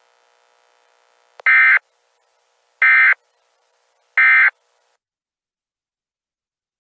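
Emergency Alert System end-of-message signal: three short bursts of SAME digital data tones, each about a third of a second long and about a second and a half apart, marking the end of the alert.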